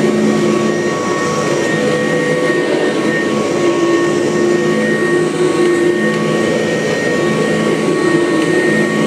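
Kirby upright vacuum cleaner running steadily while vacuuming, a loud rushing air sound with a steady high whine from the motor and fan.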